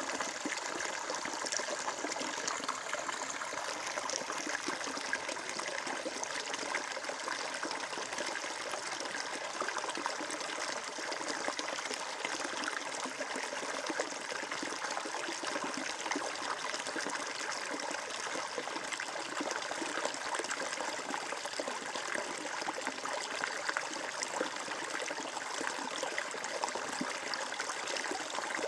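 Water flowing steadily over stones in a stream, a continuous babbling trickle.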